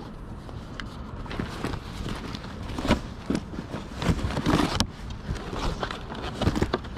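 Hands rummaging through a fabric duffel bag in a plastic tote: rustling of cloth and paper with small knocks as books and a cardboard box are shifted, and one sharp click about five seconds in.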